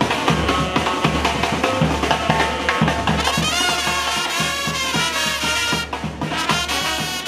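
Murga band playing: horns with wavering held notes over a fast, steady drum beat.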